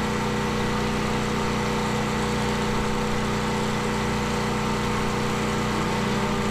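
A small engine running steadily, a constant hum that holds the same pitch and level throughout.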